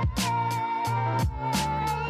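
Background music with a steady beat, about two beats a second, over sustained synth-like tones and bass.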